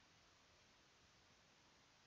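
Near silence: faint steady recording hiss.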